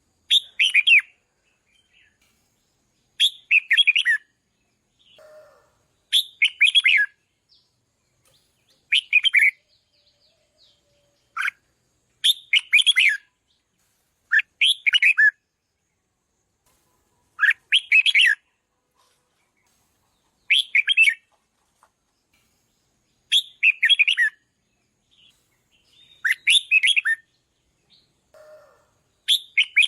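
Red-whiskered bulbul singing: short, loud, chirpy phrases of a few quick notes, repeated about every three seconds, with a fainter, lower call twice in between.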